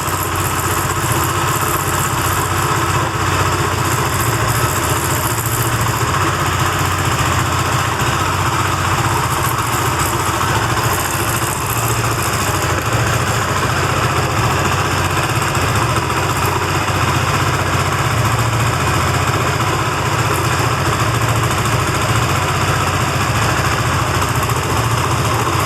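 Benelli TNT25 250cc single-cylinder engine running steadily at idle, carrying the strange buzzing internal noise the owner is chasing. The noise persists after a new timing chain, tensioner and lifters, and is heard most around the camshafts.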